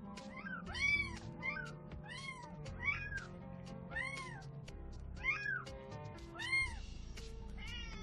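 A cat meowing over and over, short rising-and-falling calls about two a second, over background music.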